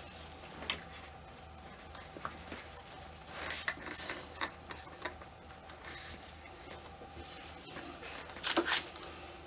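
Small clicks and rustles of hands handling a ball-jointed doll and its head, with a brief louder rustle about eight and a half seconds in as a hand reaches over the plastic bags. A faint steady hum runs underneath.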